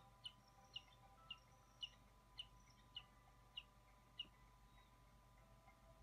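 Downy eagle chick calling: eight short, high-pitched cheeps that each slide downward, about two a second, stopping after about four seconds.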